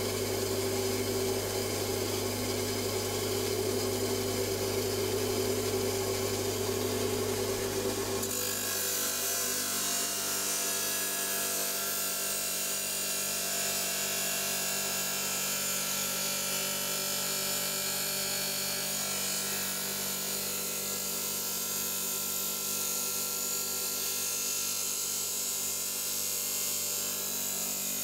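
Electric stone saw running steadily while cutting through an agate nodule. About eight seconds in the low hum drops away and a higher, hissing grind takes over for the rest of the cut.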